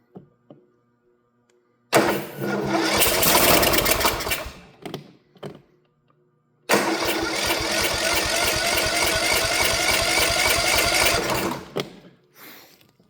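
Kohler 18 hp mower engine cranked on its electric starter with the choke on, twice: a short attempt about two seconds in, then a longer one of about five seconds, both stopping. It fires on primed gas but won't keep running, which points to fuel not getting through.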